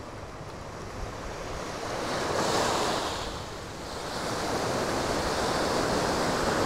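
Ocean surf breaking on a sandy beach, swelling louder twice as waves come in and wash up.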